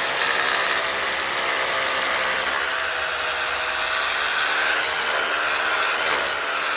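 An electric power tool's motor running steadily at full speed, with a whine over a loud hiss; near the end its pitch sags briefly as it takes load.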